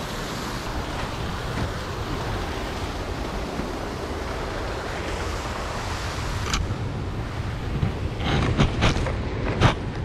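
Steady rushing of a waterfall and river, with a few short sharp noises near the end.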